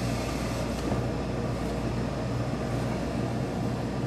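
Steady low machine hum with an even hiss over it, from workshop pressing equipment.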